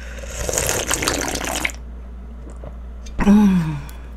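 A person slurping spicy jjamppong broth straight from the rim of a pan: one long noisy slurp of about a second and a half. About three seconds in comes a short voiced sigh that falls in pitch.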